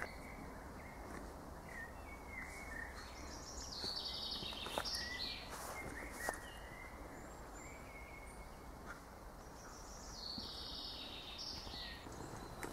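Woodland ambience: birds calling with short chirps, some high and some lower, over a steady background hiss, with a few faint ticks.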